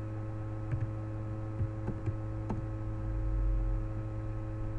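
A handful of computer keyboard keystrokes as a short code is typed, over a steady electrical mains hum. A brief low rumble comes about three seconds in.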